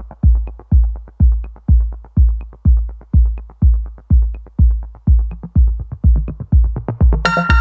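Electronic background music: a heavy, steady kick drum about twice a second with a faint tick on every other beat, joined by synth chords near the end.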